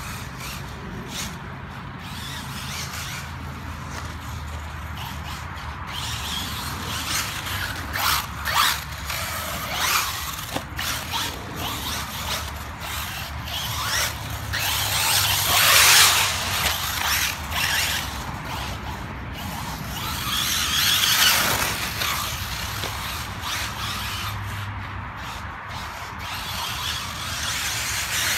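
Kyosho Inferno MP9e electric 1/8-scale off-road buggy driving laps on a dirt track: its motor and gear drivetrain whine, with tyres scrabbling on the dirt. The sound swells as the buggy passes close, about halfway through, again about three-quarters through, and near the end.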